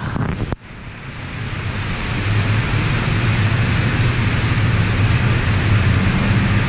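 Touchless car wash spray jets blasting water over a truck's roof and the roof-mounted camera: a loud, steady rushing hiss with a low hum underneath. It drops out briefly about half a second in, then builds up over the next two seconds.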